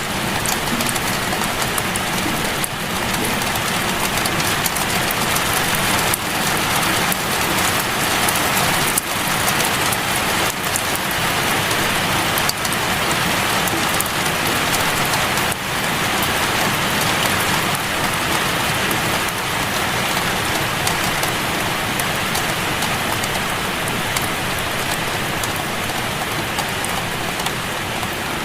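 Steady rain falling on a surface: an even, continuous hiss of rainfall with scattered individual drops.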